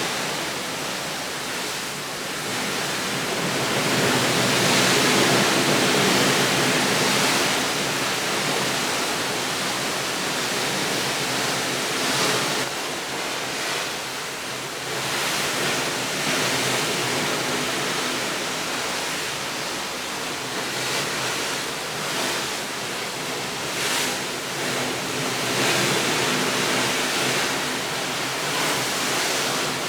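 Rushing water: a steady hiss that swells and eases over several seconds, loudest about five seconds in.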